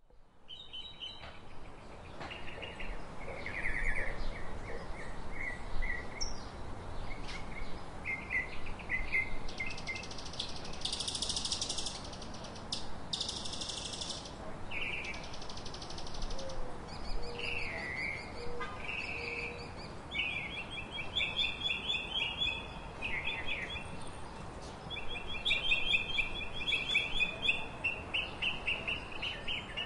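Several birds singing and calling: short chirps and trills, with two brief high buzzy trills near the middle and rapid repeated chirping in the last third, over steady low background noise.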